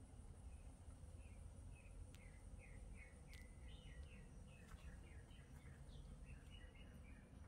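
Near silence with faint birds chirping in the background: a quick series of short, high chirps starting about a second in, over a low steady background rumble.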